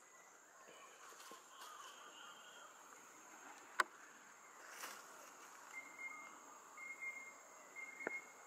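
Faint field ambience: a steady high insect drone, a sharp click about four seconds in, and three short high piping notes about a second apart near the end.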